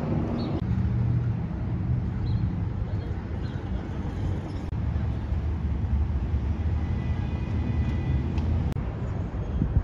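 Traffic noise: a steady low rumble of vehicle engines.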